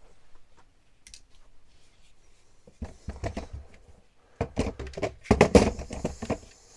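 Cordless power tools and batteries knocking and clattering as they are forced into a tight-fitting plastic DeWalt TStak tool box, in irregular bursts of hard knocks that grow loudest near the end.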